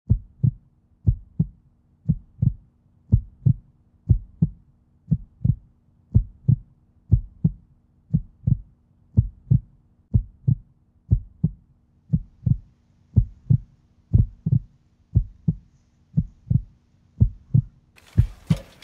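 Heartbeat sound effect: a low double thump, lub-dub, about once a second over a faint steady hum. A hissing wash of noise comes in just before the end.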